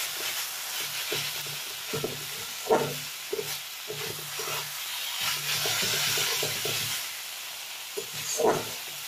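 Spatula stirring and scraping bathua greens in a metal kadai while they sizzle in oil. Louder knocks of the spatula on the pan come about three seconds in and near the end.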